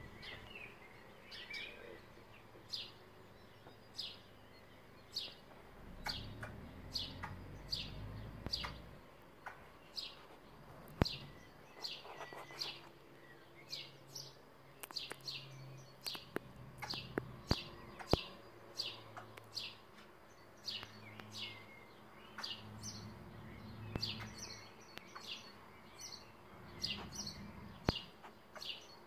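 A small songbird chirping over and over: short, high chirps, one or two a second, with a faint low hum coming and going underneath and a few sharp clicks.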